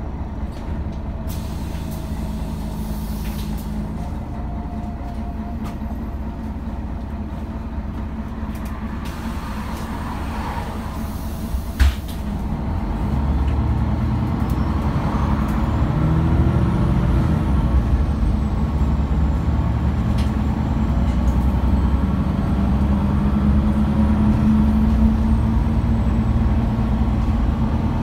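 Cabin sound inside a MAN A23 articulated city bus on the move: the diesel engine and road noise drone steadily. A single sharp knock sounds about twelve seconds in, then the engine pulls harder and louder, its pitch rising as the bus accelerates.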